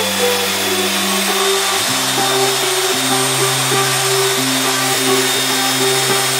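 Background music with sustained chords that change every second or so, over the steady whir of a Makita 9404 belt sander running while a wooden handle is sanded on its belt.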